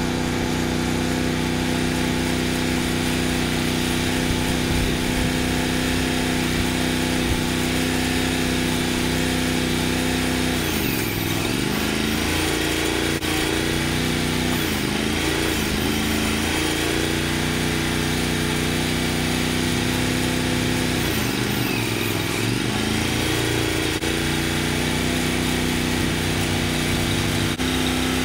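Wood-Mizer LT35 sawmill's engine running steadily. Its pitch dips and recovers about 11 seconds in, briefly again a few seconds later, and once more about 22 seconds in, as the engine takes on load.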